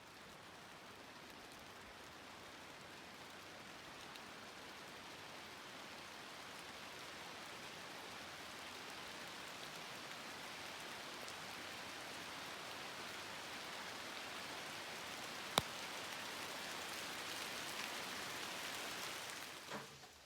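Steady heavy rain pouring down, growing slowly louder, with a single sharp click about three-quarters of the way through.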